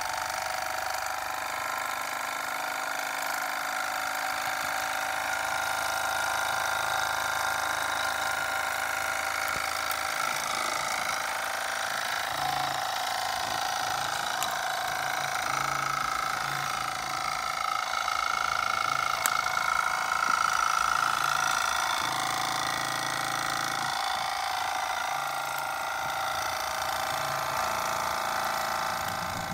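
SteamCo STC-01 model steam engine running steadily under steam: an even, continuous mechanical whir with hiss above it.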